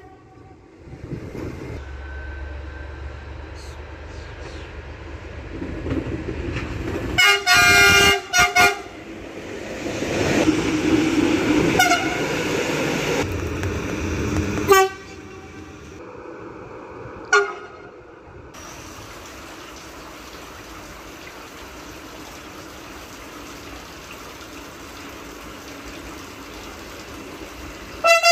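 Train horn sounding a quick series of short, loud, multi-tone toots as a train approaches, then the train rumbling past. Three more single short toots follow, a few seconds apart, before a steadier quieter running noise.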